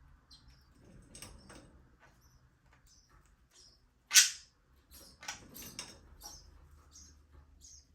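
Budgerigars chirping in an aviary: scattered short, high chirps, with one much louder sudden burst about four seconds in.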